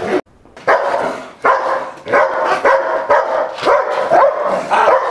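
A dog barking over and over, about two barks a second, starting just after a brief gap near the start.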